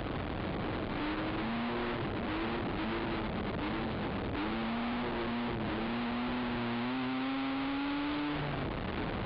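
Race ATV engine running hard at changing throttle under a steady rush of wind and trail noise; its pitch climbs slowly for a couple of seconds, then drops off near the end.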